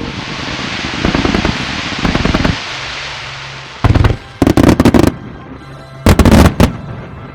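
Aerial fireworks: a dense crackling hiss for about three seconds, then sharp, loud shell bursts in two clusters, about four and six seconds in.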